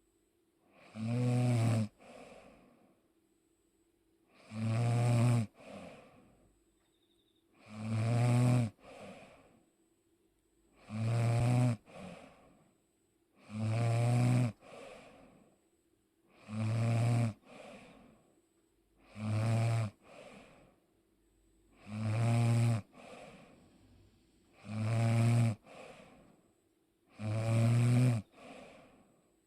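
A person snoring steadily, about one snore every three seconds. Each snore is a loud, low buzzing breath in, followed by a shorter, quieter breath out.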